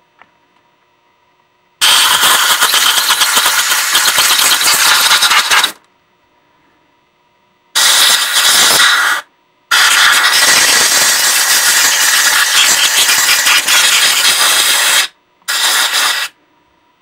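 Compressed-air blow gun blowing out the ports of a two-stroke moped cylinder, in four loud hissing blasts that start and stop abruptly. The blasts last about four, one and a half, five and one second.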